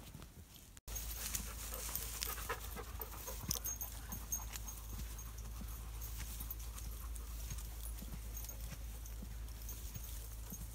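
Dogs panting while trotting close by, with scattered footfalls and a steady low rumble on the microphone. There is a brief break in the sound about a second in.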